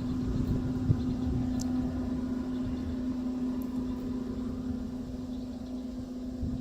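A steady engine hum holding one pitch, with rough low rumbling noise under it.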